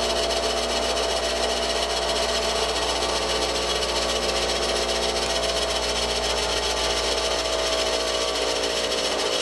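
Bench grinder running steadily, a constant hum with a steady whine, as the pilot drill bit of a hole saw is sharpened on its wheel.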